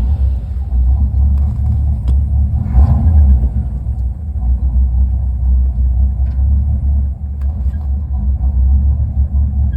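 Car engine idling roughly: a loud, deep rumble whose loudness wavers unevenly instead of holding steady.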